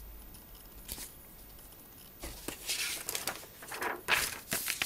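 Paper instruction booklet rustling as its pages are handled and turned. There is a light tap about a second in, then two stretches of crinkling rustle in the second half.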